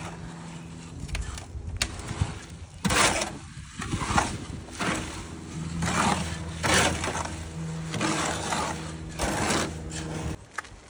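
A garden hoe scraping and chopping through wet concrete mix in a steel wheelbarrow, in repeated strokes about once a second. Under it runs a steady low mechanical hum.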